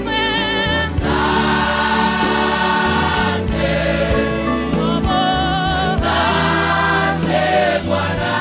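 Gospel choir singing over instrumental backing, the voices held in long notes with vibrato above a steady bass.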